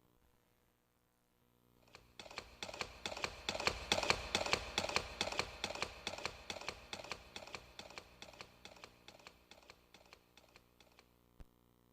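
A karaoke machine's built-in sound effect: a rapid run of sharp taps or claps, several a second, starting about two seconds in, swelling, then slowly fading out.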